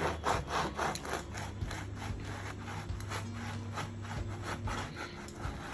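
Repeated rubbing or scraping strokes, quick at first and then slower and more spaced, over a low steady hum.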